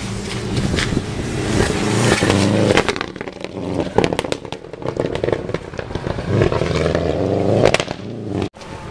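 Subaru Impreza rally car's flat-four engine at full throttle, its note rising as the car approaches and slides past on loose gravel, with a burst of crackling and pelting gravel about three seconds in. The engine swells again later, and the sound cuts off abruptly near the end.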